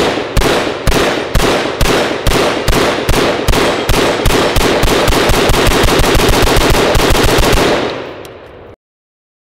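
Rifle firing a long, fast string of shots, about two a second at first and quickening until the shots run together; the firing stops about eight seconds in and the sound cuts off suddenly.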